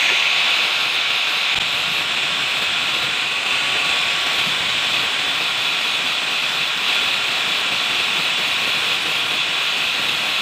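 Handheld angle grinder with an abrasive disc running steadily against a steel cylindrical hinge, grinding the oily surface clean before welding.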